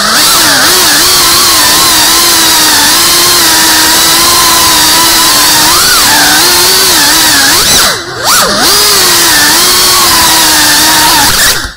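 FPV drone's brushless motors and propellers running at full tilt, a loud whine whose pitch wavers up and down with the throttle. It dips briefly about eight seconds in and falls away at the end.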